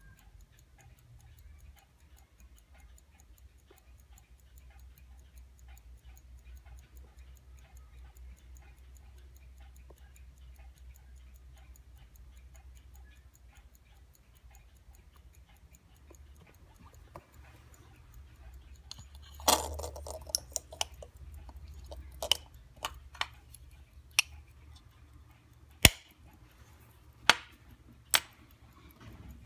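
Mechanical pocket watch ticking quickly and steadily. About two-thirds of the way through, a run of louder sharp clicks and knocks breaks in as the watch is handled.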